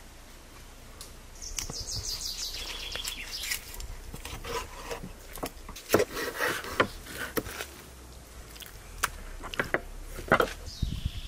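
A bird chirps in a quick run of short high notes that step down in pitch, and chirps again near the end. In between come a string of sharp clicks and knocks from food or utensils being handled.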